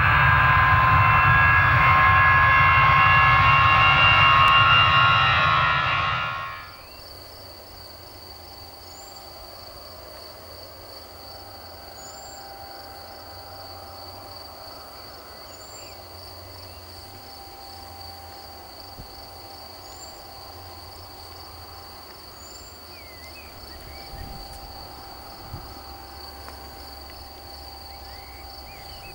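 A loud intro sound effect with rising tones for the first six or so seconds stops sharply. Then comes quiet airfield ambience: a steady pulsing insect trill, a bird's short high chirp repeated every few seconds, and a faint steady whine from the distant Cessna 680 Citation Sovereign business jet's engines running on the runway.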